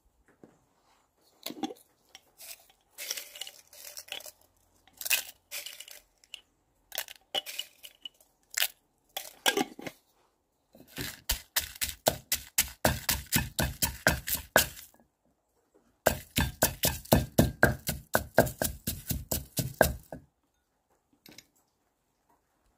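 Wooden pestle pounding dried red chilies in a clay mortar. Scattered knocks and scrapes come first. Then there are two runs of rapid, even pounding, about five strokes a second and some four seconds each, with a short pause between.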